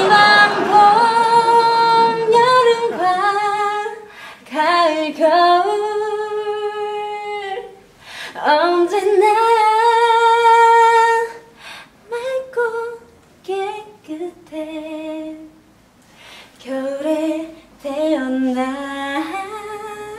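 A young woman singing a Korean birthday song unaccompanied. She draws the notes out into long, wavering, sliding phrases with short breaks between them.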